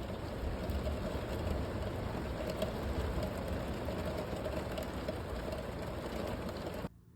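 Steady heavy rain on a van's roof, heard from inside the van, with faint ticks of drops through the rush; it cuts off abruptly near the end.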